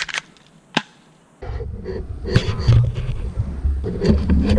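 Two sharp airsoft gun shots, one at the start and one just under a second later. Then, from about a second and a half in, a loud low rumbling noise with scattered crackles.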